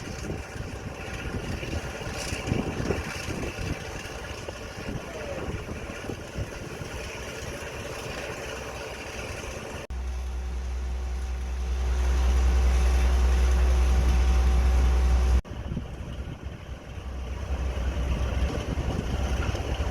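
Diesel locomotive engines running, heard in three shots joined by sudden cuts about ten and fifteen seconds in. The middle shot has a heavy low rumble with a steady tone over it.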